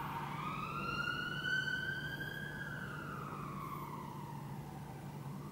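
A siren wailing faintly: one slow rise and fall in pitch, with the next rise starting near the end, over a steady low hum.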